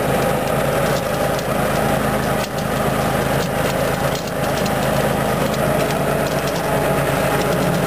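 Walker riding mower's engine running steadily while mowing grass.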